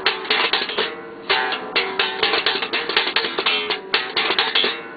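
Electric bass played with a fast slap technique: a rapid run of sharp, percussive plucked notes, with a brief break about a second in.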